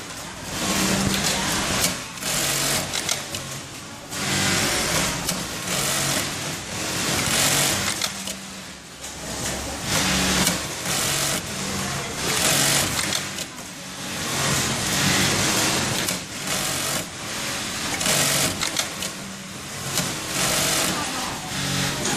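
Industrial automatic pattern sewing machine stitching football panels, running in repeated stretches of a second or two with short pauses between as each seam is sewn.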